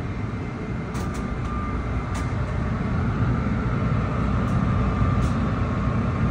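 Car wash's giant air-dryer blower running, a steady rush of air blasting the water off the car, growing slightly louder toward the end.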